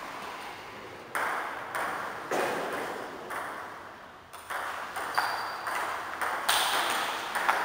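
Table tennis ball knocking on bats and table during a rally, each knock with a short ringing echo in the hall. A few spaced knocks come first, then quicker ones from about halfway through.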